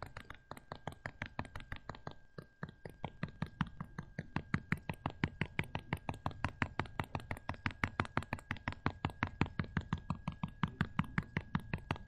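Stylus tapping rapidly on a tablet surface, a quick even series of light clicks at about five or six a second, one tap for each dot plotted.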